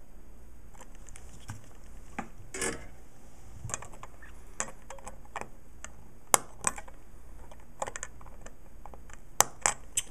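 Small clicks and taps of soldering-bench work, ending in sharp snips as flush cutters trim an LED's wire leads on a circuit board, a few of them about six and nine seconds in.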